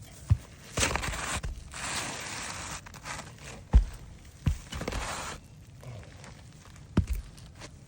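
A roof shingle being worked and lifted by hand: rough scraping and crackling in several short spells, with a few sharp knocks, the loudest about four seconds in and near the end.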